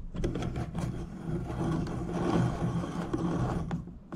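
Rethreader of an all-in-one skate tool being turned back off a skateboard truck axle: steady metal-on-metal scraping of the threads, with a few clicks near the start. The rethreader is chasing damaged axle threads that had made the nut hard to get on.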